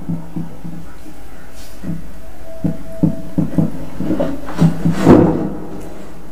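A steady low hum with a scattering of short, soft knocks; the strongest knock comes about five seconds in.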